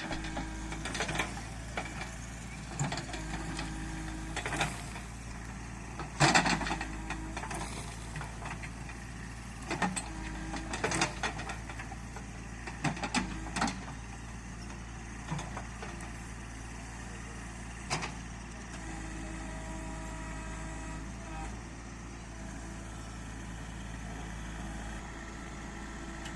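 JCB 3DX backhoe loader's diesel engine running steadily while working, with repeated sharp knocks from the machine, the loudest about six seconds in.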